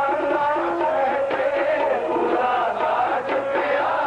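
Sikh kirtan music: a harmonium sustains a melody, with tabla strokes keeping a steady beat and voices chanting along.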